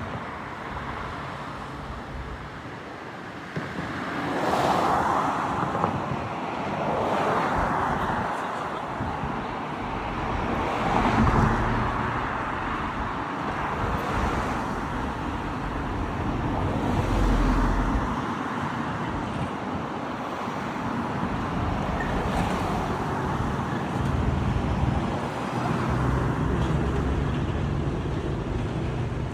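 Road traffic: a steady background of noise with several vehicles passing, each swelling and fading over a couple of seconds.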